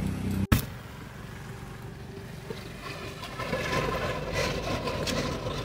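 Louder sound cuts off abruptly about half a second in, leaving a quiet, steady low rumble of outdoor background noise that grows slightly louder near the end.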